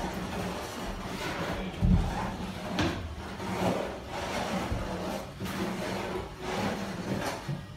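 Hand spreader scraping latex flooring adhesive across the floor in repeated strokes, with a thump about two seconds in.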